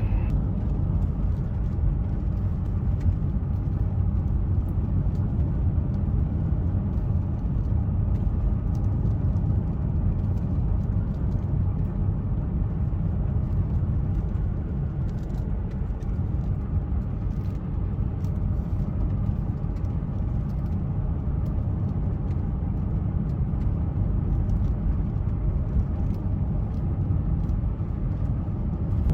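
Steady engine and road noise inside a van's cabin while driving, an even low rumble with no distinct events.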